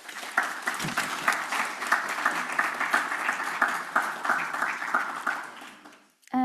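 Audience applauding, a dense patter of clapping that holds steady and then dies away near the end.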